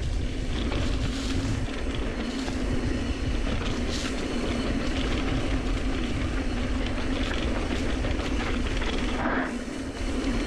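Specialized Turbo Levo SL e-mountain bike riding fast down rough dirt singletrack: tyres rumbling over the ground and the bike rattling and clattering without a break, with a steady low hum underneath.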